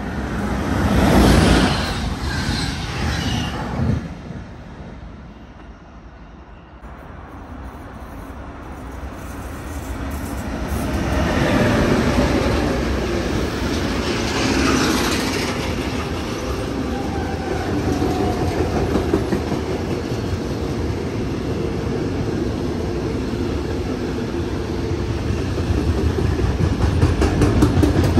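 An intermodal freight train hauled by an electric locomotive runs through the station at speed: a long, steady rumble of wagon wheels with a rapid clickety-clack over the rail joints, building up over several seconds. In the first few seconds there is a shorter loud rush, another train going by.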